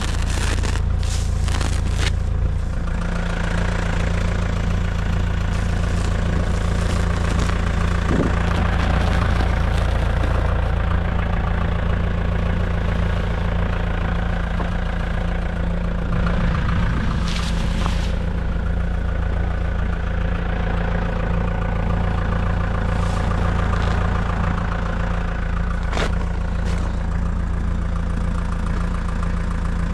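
Tractor engine running steadily at a constant speed, with a few short sharp clatters from the bale-handling equipment: several near the start, one about halfway through and one near the end.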